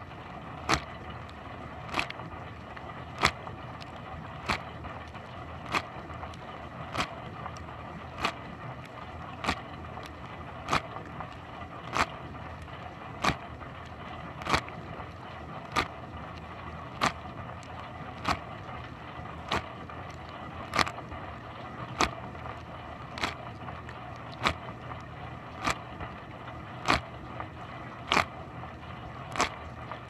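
Dishwasher wash cycle heard from inside the tub: a steady rush of spraying water over a low hum, with a sharp splash-hit about every one and a quarter seconds as the rotating spray arm's jet sweeps over the camera.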